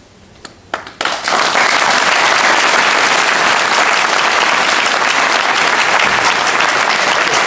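A couple of single claps, then an audience breaks into steady, loud applause about a second in.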